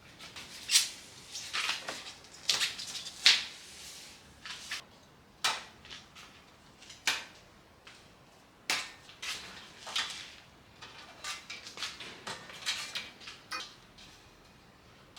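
Irregular clicks, knocks and clatter of hand tools and car body parts being handled while the front bumper is taken off. The sharpest knocks come about a second in and again around two and a half and three seconds in.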